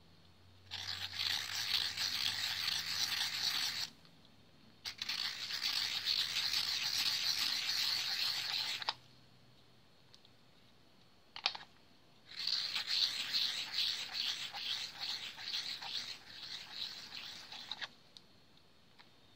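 Graphite lead of a Staedtler Mars 780 lead holder being turned in a Staedtler 502 rotary lead pointer, a dry scratchy grinding as the cutter shaves the lead to a point. It comes in three spells of a few seconds each, with a couple of sharp clicks in the second pause.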